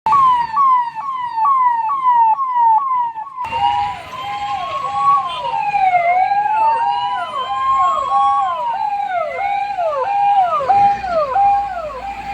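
Emergency vehicle sirens. First a fast yelp, about two falling whoops a second. Then, after an abrupt change about three and a half seconds in, several sirens sound together: a slow rising and falling wail over a faster repeating one.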